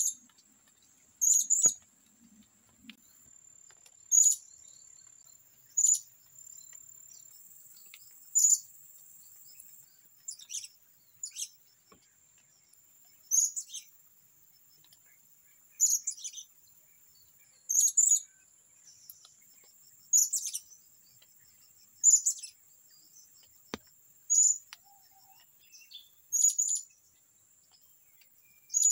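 Blue-crowned hanging parrot (serindit) giving short, shrill, high-pitched calls, about one every two seconds: a caged decoy calling to lure wild serindit.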